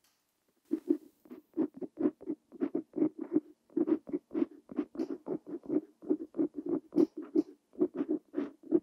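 Parker Jotter fountain pen nib scratching on paper in quick, short, separate strokes as Korean characters are handwritten, starting about a second in.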